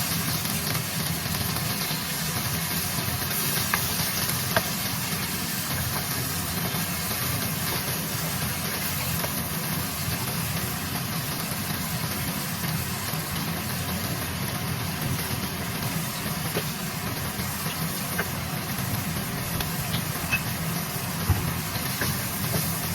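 Stir-fry frying in a hot pan: a steady sizzle over a steady low hum, with a few sharp clicks scattered through, like a utensil striking the pan.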